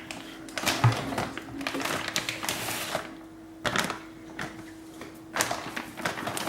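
Unboxing handling noise: a low thump about a second in, a run of clicks and rustles of packaging and parts, then a few sharper knocks, over a faint steady hum.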